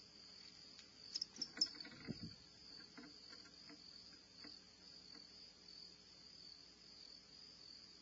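Crickets trilling faintly and steadily at a high pitch. About a second in, four short sharp high clicks come in quick succession, followed by a brief low thump.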